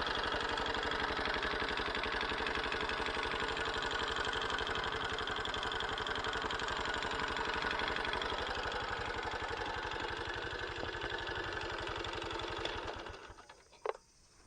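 Honda Super Cub JA07's 110 cc air-cooled single-cylinder engine idling with a rattling clatter, an abnormal noise that the owner suspects comes from a screw come loose inside the engine. The engine dies away about a second before the end, and a brief rising tone with a click follows.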